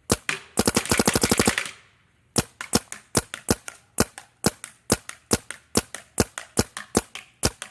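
Planet Eclipse Geo 3 paintball marker firing: a few shots, then a fast burst of about a dozen rapid shots. After a short pause it fires a steady string of shots, about five a second.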